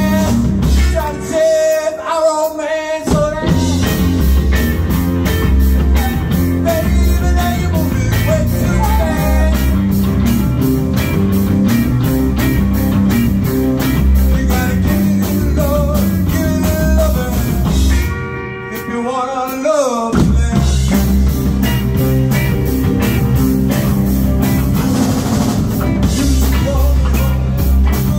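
Live rock band playing: drum kit, electric bass, electric guitar and keyboard, with a woman singing. The drums and bass drop out briefly twice, about two seconds in and again around eighteen seconds, leaving the higher parts ringing on before the full band comes back.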